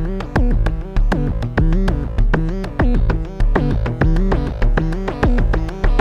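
Make Noise Eurorack modular synthesizer playing a sequenced acid-style line with delay echoes: a pitched note about every 0.6 s, each with a sharp attack and a sliding pitch.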